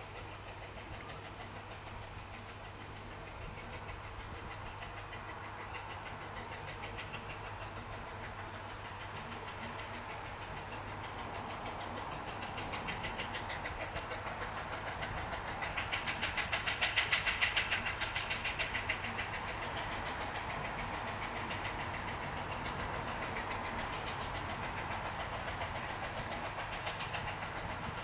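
Narrow-gauge steam locomotive working hard up a 1 in 50 gradient, its rapid exhaust beats growing louder as it approaches, loudest a little past halfway.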